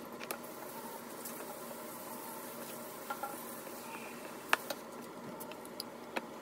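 Silicone spatula stirring flour, oil and water into a dough in a ceramic bowl: faint scraping with a few light clicks, the sharpest about four and a half seconds in.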